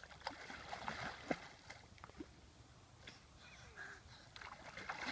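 Water splashing and sloshing as a person wades and paddles through a river, in short irregular splashes that are heaviest in the first couple of seconds and pick up again near the end.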